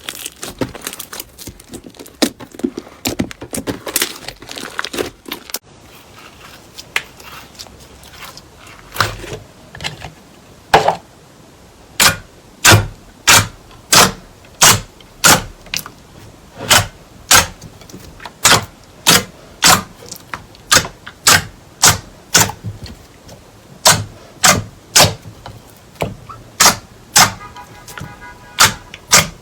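Slime being handled: dense crackling for the first few seconds, then a steady series of sharp clicking pops, about three every two seconds.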